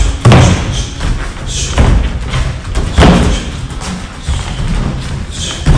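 Heavy thuds recurring about every second or so over background music.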